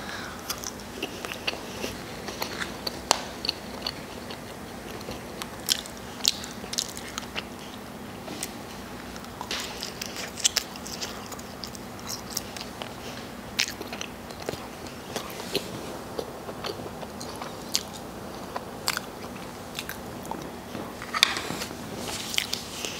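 A person chewing and biting bacon cheese fries, with scattered short sharp clicks and small crunches from the mouth and a faint steady hum underneath.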